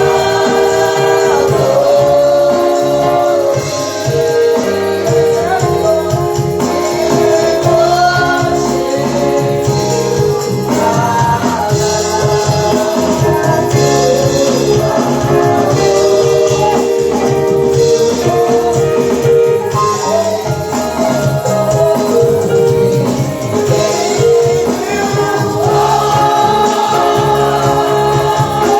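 Live gospel praise-and-worship music: voices singing together over held instrumental chords, with a regular percussive beat.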